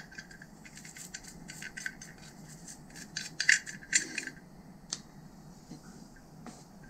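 Toothbrush bristles scrubbing a black plastic Kinetico water-softener valve disc: a run of quick, short, scratchy strokes that stops a little after four seconds, then a single click about a second later.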